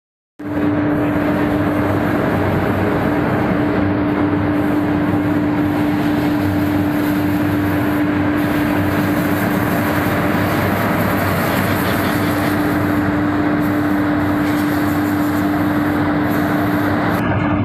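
Wood pellet production line machinery running: a loud, steady industrial drone with a constant hum, starting about half a second in.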